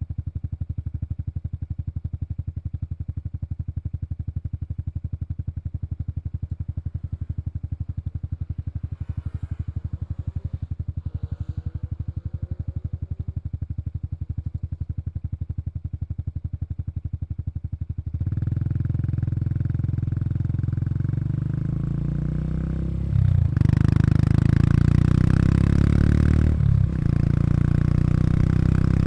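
Honda Super Cub 110 Pro's air-cooled single-cylinder engine and exhaust idling steadily with an even low pulse, then the engine speed is raised about two-thirds of the way through. It gets louder in steps, with two short dips in between.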